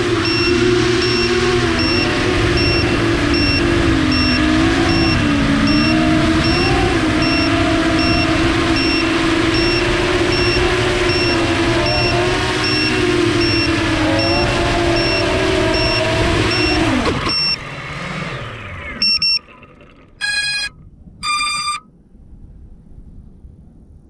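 FPV quadcopter's four brushless motors (Eachine 2507 1800kv) whining steadily from the onboard camera, the pitch wavering with throttle, then cutting off about 17 seconds in and winding down. A short electronic beep follows, then two longer electronic beeps about a second apart.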